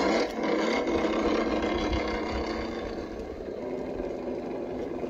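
Traxxas TRX-4 Defender RC crawler's electric motor and gearbox whirring steadily as the truck crawls slowly over rock.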